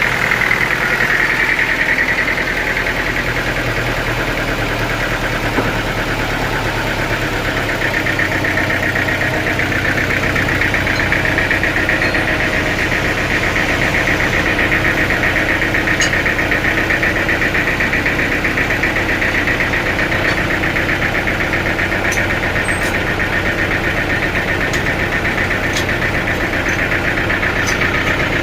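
Sawmill saw machinery running steadily and continuously, a loud, even mechanical drone with a fast fine pulsing.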